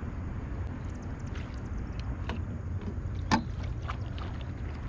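A single sharp knock on a bass boat as a hooked bass is being landed with a net, over a steady low rumble and scattered small clicks.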